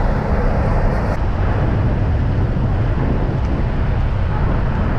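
Steady outdoor rumble of wind buffeting the microphone over idling semi-trucks and cars. The upper hiss drops away abruptly about a second in.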